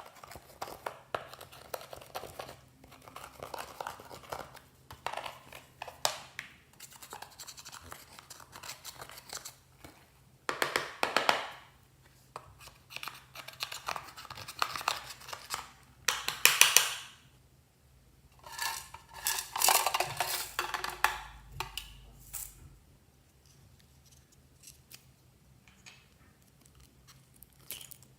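Slime being squeezed, poked and stretched by hand, making irregular bursts of crackles and pops. The louder stretches come about a third of the way in, just past the middle and around two-thirds through, and it is quieter near the end.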